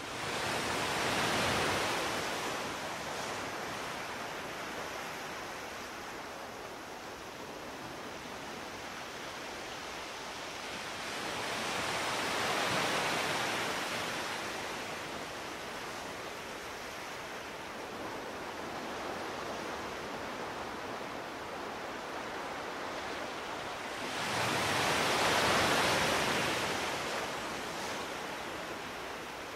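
Ocean surf: a steady wash of noise that swells three times, about every twelve seconds, as waves come in and break.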